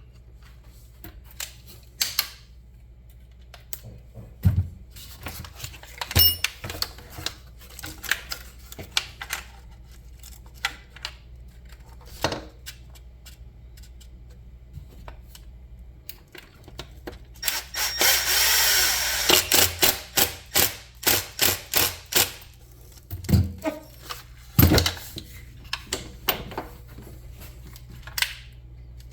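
Scattered clicks and taps of small tools and metal parts being handled on an RC truck's suspension. About two-thirds of the way in, a power drill runs for about two seconds, followed by a quick series of sharp clicks.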